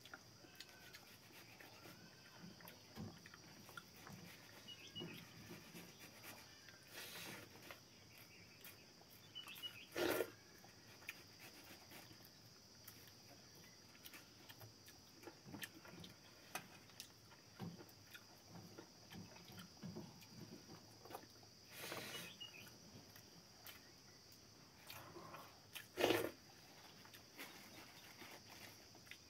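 Quiet hand-eating sounds of rice, dal and cooked greens eaten with the fingers from steel plates: soft chewing, lip smacks and fingertips scraping the plate. A steady high hiss sits underneath, and a few louder short knocks come through, the loudest about ten seconds in and near the end.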